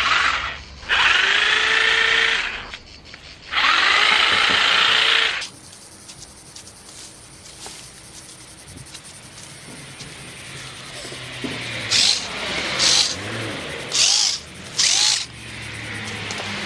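Small electric chainsaw cutting through garden plant stems. It runs in three loud runs of one to two seconds in the first half, the motor pitch rising as each run starts. Four short bursts follow near the end.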